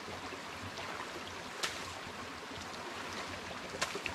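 Shallow creek running steadily over stones, with two sharp clicks, one about a second and a half in and one near the end, as a tin can is scrubbed clean with gravel in the water.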